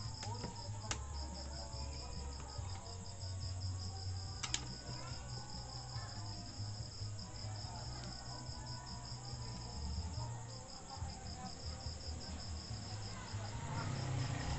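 A cricket chirping in a steady, rapid pulsing rhythm over a low hum, with two small clicks about one and four and a half seconds in.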